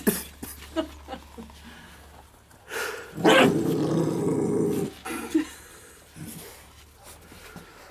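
Rottweiler puppies growling as they play-fight over a tennis ball. The loudest part is one long growl of about a second and a half near the middle, with shorter, fainter growls and scuffling clicks around it.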